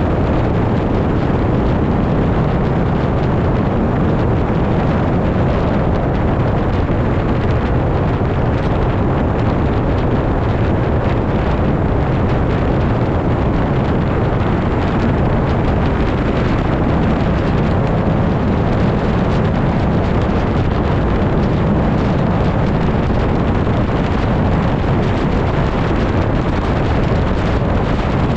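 Steady rush of wind buffeting an outside-mounted camera microphone, mixed with the road and tyre noise of a car driving at highway speed.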